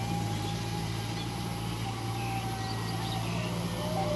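Kubota M6040SU tractor's diesel engine running steadily while it pulls a rotary tiller through wet paddy mud, with a steady whine that drops slightly in pitch near the end.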